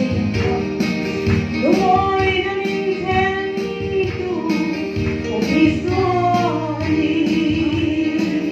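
A woman singing a Mizo song with guitar accompaniment and a steady beat, holding long notes in the melody.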